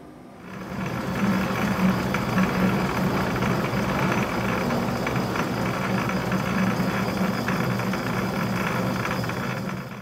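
Metal lathe switched on about half a second in, then running steadily with its spindle turning while the cutting tool turns a small metal part. There is a steady low hum and a hiss of cutting with scattered faint ticks, and the sound stops suddenly at the end.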